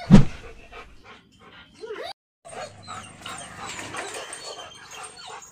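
A German shepherd dog vocalising in short, repeated sounds, after a loud thump right at the start.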